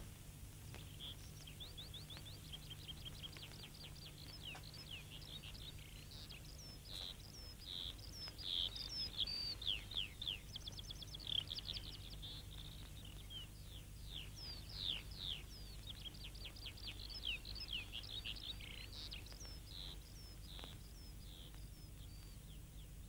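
Faint songbirds singing: quick trills and short falling chirps, over a low steady hum.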